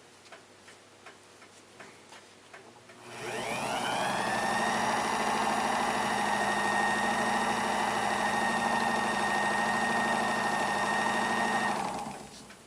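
Small lathe motor spinning up with a rising whine, running steadily, then winding down near the end, while it turns a clock's balance wheel to polish its pivots. A few faint clicks come before it starts.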